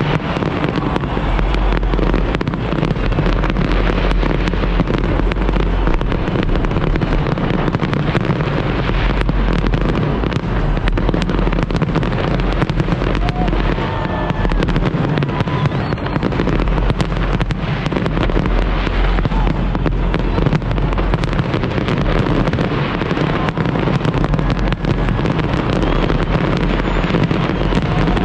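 New Year's fireworks display: a continuous, dense barrage of crackling bangs and pops with no pause.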